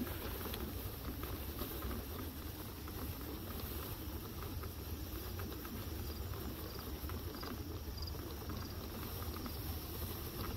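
Steady low rumble of a Halo Rover hoverboard rolling across grass, with faint insect chirps now and then in the second half.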